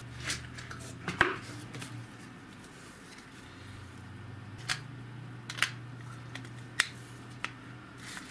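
Scattered sharp plastic clicks and knocks, about six of them, the loudest about a second in, as AA batteries are handled and fitted into the battery compartment of a small black accessory. A low steady hum runs underneath.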